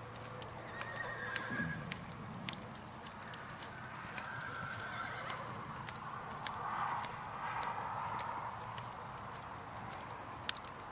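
Hoofbeats of an American Quarter Horse gelding loping on the dirt of an arena under a rider, with many sharp clicks scattered throughout.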